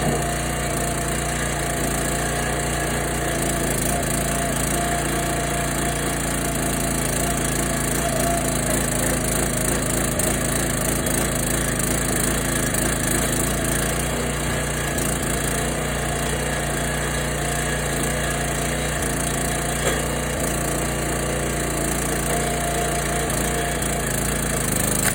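The Kohler 6.5 hp single-cylinder engine on a 22-ton log splitter runs at a steady speed, with wood cracking and splitting as logs are pushed through the wedge.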